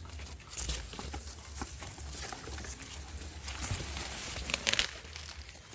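Dry maize leaves and husks rustling and crackling as ears of maize are plucked from the stalks, with a louder crackle a little before the end.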